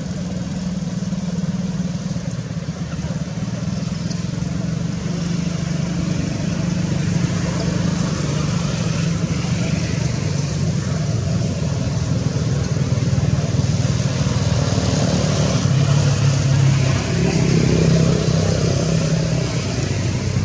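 A motor engine running steadily with a low hum, getting louder after the middle, with a rising pitch near the end.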